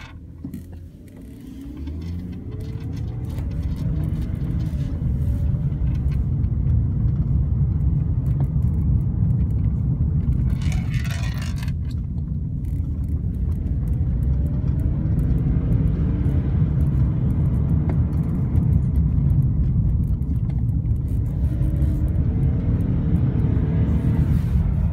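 Engine and road noise inside the cabin of a BMW 328i convertible driving at low speed, its straight-six rising in pitch as it accelerates. About eleven seconds in there is a brief noisy burst lasting a second or so.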